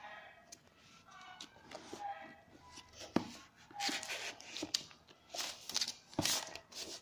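Hands working an iPad's cardboard retail box: the lid rubbing and sliding off, rustling and scraping, with sharp knocks about three seconds in and again about six seconds in as the tablet is lifted from its tray.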